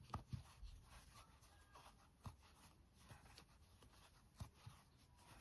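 Near silence, with a few faint scratchy ticks of a metal crochet hook and brown aran yarn as single crochet stitches are worked.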